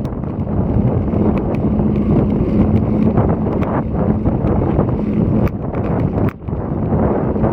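Heavy wind buffeting the microphone of a moving road bike's action camera: a loud, dense rumble with a steady low hum underneath that drops away briefly about six seconds in.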